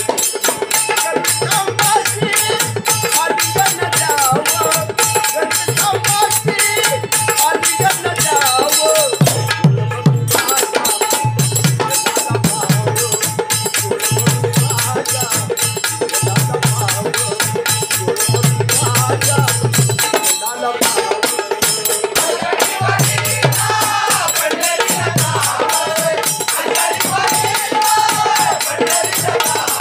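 Marathi devotional abhang bhajan: a voice singing in wavering melodic lines over a fast, even jingling percussion beat, with a drum struck in short groups and a steady held tone under the melody.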